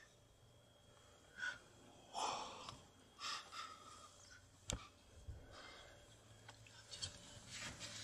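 Faint whispering and breathing from people close to the microphone, in a few short, breathy bursts, with one sharp click a little past halfway.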